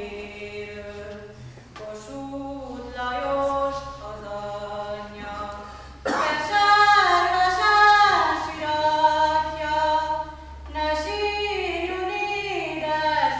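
A citera ensemble of Hungarian zithers plays with voices singing a folk song. About six seconds in the music swells suddenly louder and fuller.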